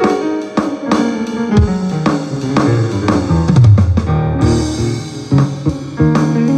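Rock band music: a drum kit with kick and snare drum keeps a steady beat under guitar and a moving bass line.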